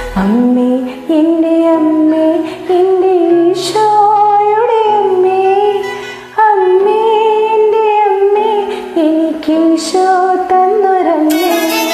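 A woman singing a Malayalam song over a karaoke backing track of soft, held keyboard notes, her voice gliding and bending on long notes. Near the end a bright cymbal-like swell comes in as the fuller accompaniment returns.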